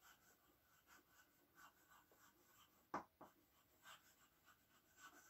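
Faint chalk writing on a blackboard: short scratches and taps as a word is written, with one sharper tap about three seconds in.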